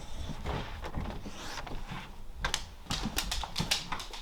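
A run of light, irregular clicks and taps, coming thicker and faster in the second half.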